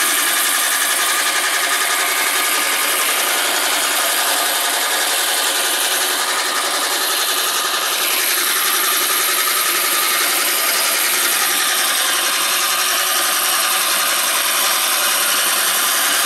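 A homemade electric reel lawn mower running: CIM motors driving the cutting reel through an AndyMark gearbox make a loud, steady whirring whine. Part of the whine drops in pitch about seven seconds in.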